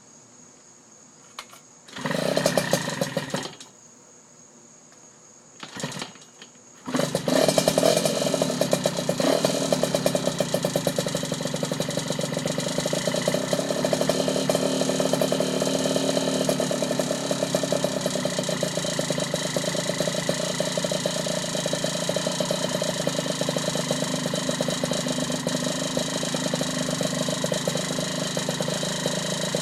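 Small Yamaha 49cc two-stroke engine breathing through a Jemco expansion-chamber exhaust being started: it fires briefly about two seconds in, dies, splutters again near six seconds, then catches just before seven seconds and runs steadily at idle.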